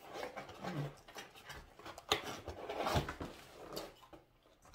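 Close-up eating noises: chewing and mouth sounds from a bite of a pickled pepperoncini, with irregular rustles and clicks of food being handled over a plate. The loudest clicks come about two and three seconds in.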